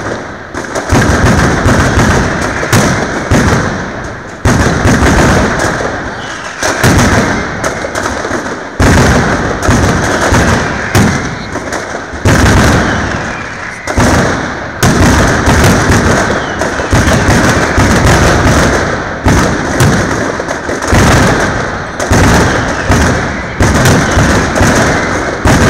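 Mascletà firecrackers (masclets) going off in a dense, continuous barrage of very loud bangs, with a fresh volley hitting every second or two.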